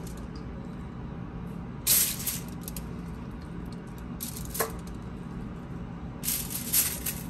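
Aluminium foil crinkling three times in short bursts as raw chicken drumsticks are set down on a foil-lined baking sheet, over a steady low hum.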